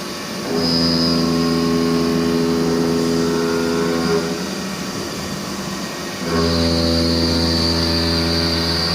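CNC machine running, its hum and high whine stepping up to a louder steady level for about three and a half seconds, dropping back, then stepping up again about six seconds in.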